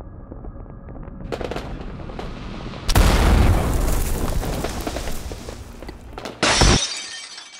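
Cinematic sound effect of glass exploding: a building rumble, then about three seconds in a loud boom and crash of shattering glass that carries on for a few seconds. Near the end comes a second short, sharp crash.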